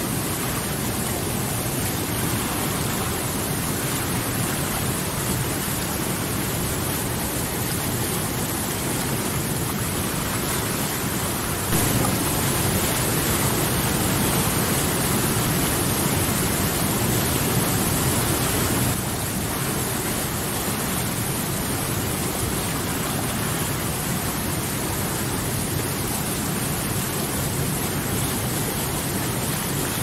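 Whitewater rapids of a mountain stream rushing over boulders: a steady, dense rush of water, a little louder for several seconds in the middle.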